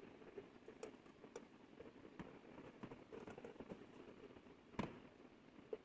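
Faint rubbing and rustling of work-gloved hands gripping and turning a tarnished brass bowl, with scattered light clicks and one sharper tap near the end.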